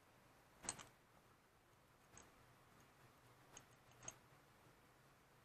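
Near silence broken by a few faint metallic clicks and ticks as a screwdriver works the float-bowl screws of a GY6 scooter carburetor. The clearest is a double click about a second in, with softer ticks later on.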